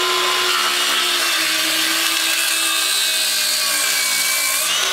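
Festool HKC 55 18-volt cordless circular saw running on its guide rail, its blade cutting across a pine board. The motor's steady whine sags slightly in pitch under the load of the cut and climbs back near the end as the blade clears the board.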